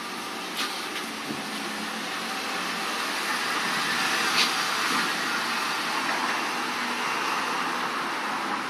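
Steady road-traffic noise that swells as a vehicle passes and then eases off, with two short sharp clicks over it.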